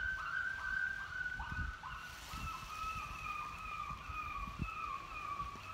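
Electronic predator caller playing a coyote distress sound: a rapid string of short, high yelps, about three a second, running into longer wavering cries about two seconds in. Low thumps sit underneath.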